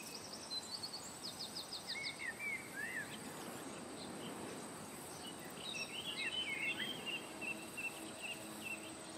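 Birds chirping over a steady background hiss, with a faint continuous high tone. There are quick runs of chirps in the first three seconds and a busier cluster of chirps from about six to seven and a half seconds.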